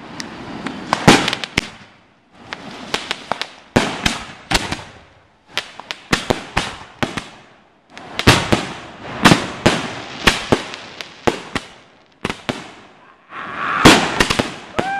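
Consumer fireworks going off together in a finale: volleys of sharp bangs and crackling over a hiss. They come in waves a couple of seconds long, with brief lulls between.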